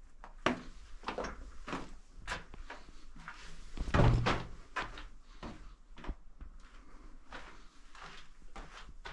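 Footsteps scuffing and crunching on loose rock and gravel of a cave floor, about two steps a second, with a heavier thump about four seconds in.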